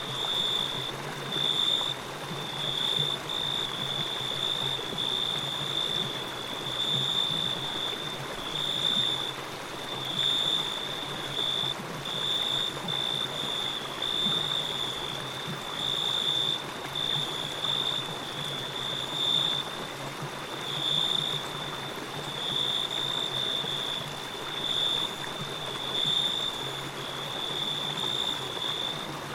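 Forest ambience: a stream flowing with a steady rush, under a high-pitched trill that pulses on and off about once a second.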